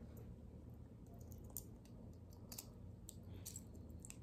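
A few faint, irregular clicks of a chunky gold-tone Cuban link chain necklace, its metal links and clasp clicking as the ends are fitted together at the neck.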